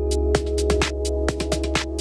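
Electronic background music with a fast, steady beat over held notes and a deep bass line.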